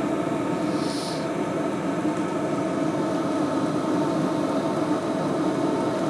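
Hcalory HC-A01 portable diesel heater running: a steady hum from its fans and burner, still at full running just before its automatic temperature shutdown.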